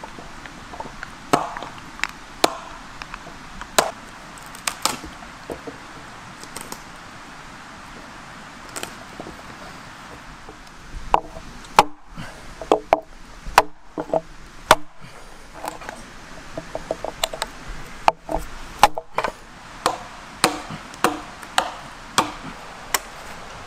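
Axe chopping into a fresh ash log, taking wood off a canoe paddle blank: sharp single strikes, a few seconds apart at first and coming faster, about one or two a second, in the second half.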